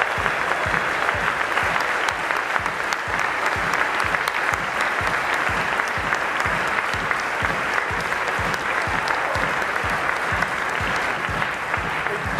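A large audience applauding steadily, with music playing a steady low beat underneath.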